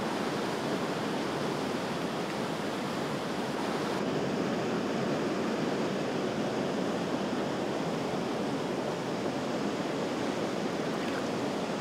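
Steady rush of river water pouring over a weir, an even hiss with no breaks; the highest part of the hiss drops away a little about four seconds in.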